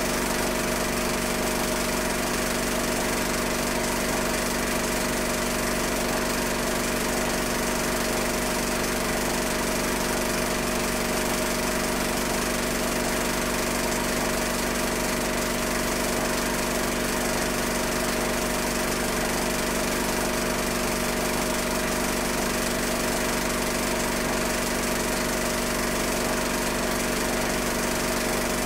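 Steady machine drone with a constant hum and hiss, never changing in level or pitch.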